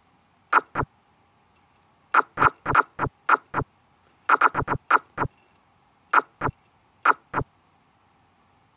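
Chess program's move sound effects: sharp clicks, mostly in quick pairs about a quarter second apart, as moves are played out in quick succession on the board.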